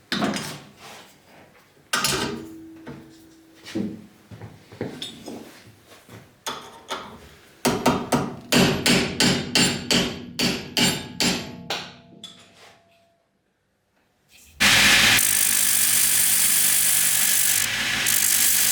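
Hammer blows, a few single strikes with a ringing tone and then a quicker run of two or three strikes a second. After a short pause a power tool starts and runs steadily and loudly.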